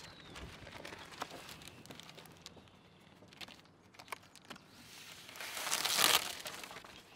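A sheet of Vycor enV-S house wrap rustling and crinkling as it is handled and pressed flat against the wall, with a few light ticks and a louder rustle about six seconds in.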